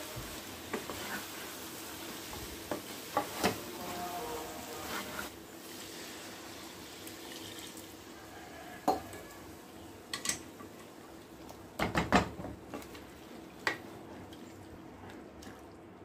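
Wooden spatula stirring and scraping a vegetable-and-masala mix in a kadai, with scattered knocks against the pan. There is a frying sizzle for the first few seconds, then wetter stirring once water has been added.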